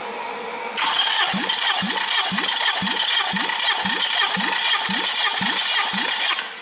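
Toyota 2AZ-FE 2.4 L four-cylinder engine being turned over on its starter motor, without firing, for a compression test of cylinder one. The starter whirs steadily with a pulse about twice a second. It starts about a second in and stops shortly before the end.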